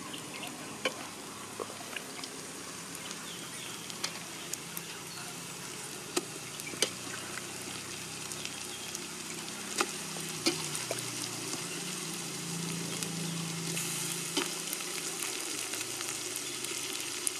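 Pieces of country chicken frying in hot oil in a pot over a wood fire: a steady sizzle that grows a little louder in the second half, with scattered sharp clicks.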